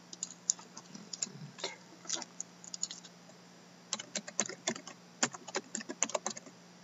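Typing on a computer keyboard: quick, irregular keystrokes, with a pause of about a second midway.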